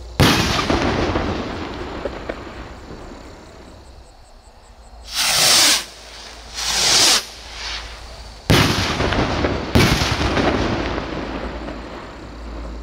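Funke Bomben Raketen firework rockets: a sharp bang with a long rolling echo, then two loud rushing whooshes of rockets lifting off about five and six-and-a-half seconds in. Two more bangs follow about a second apart near nine seconds, each echoing away.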